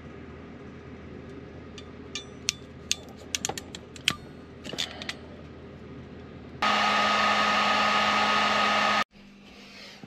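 A hand crimping tool clicking several times as a ring terminal is crimped onto a wire, then a heat gun running steadily for about two seconds with a constant hum, cutting off abruptly.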